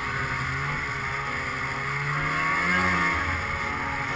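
Arctic Cat M800 snowmobile's two-stroke twin engine running under throttle as the sled moves over snow. The pitch climbs briefly about two and a half seconds in, then falls back, over a steady hiss.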